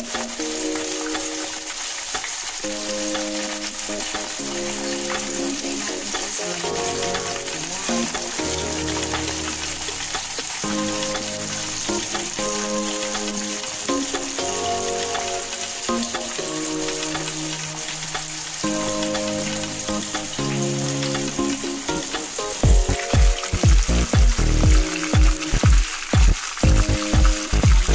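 Chicken pieces frying in shallow oil in a nonstick pan, a steady sizzle, under background music. A heavy beat comes into the music near the end.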